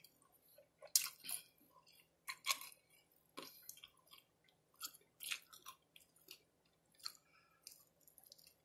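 Close-up chewing of a taco cup snack: irregular wet mouth smacks and crunches, several a second at times.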